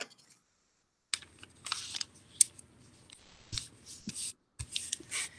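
Paper rustling and crinkling in short, irregular, faint bursts as a sheet of origami paper is handled and folded, heard through video-call audio that is cut to dead silence for about the first second.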